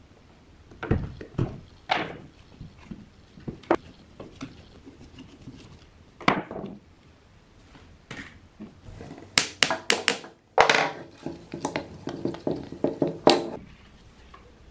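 Irregular knocks, taps and clatter of hard parts being handled and set down in a small workshop, with a quick run of sharp knocks about two-thirds of the way through.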